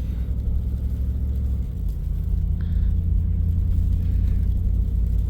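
Steady low rumble of a truck driving, heard from inside the cab: engine and road noise while towing a trailer.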